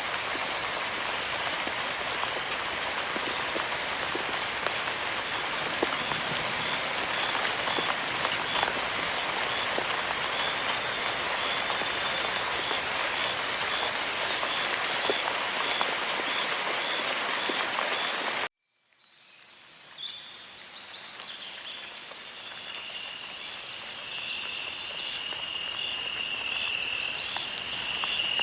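Rain falling steadily, with a faint high pulsing trill behind it. About two-thirds of the way through it cuts off abruptly to silence, then a quieter outdoor ambience fades in, with a high pulsing trill from a small animal growing louder.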